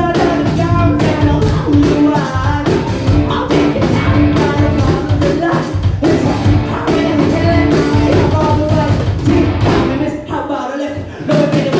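Live rock band playing with a singer, drums and bass under the vocal. The band drops out briefly near the end, then comes back in.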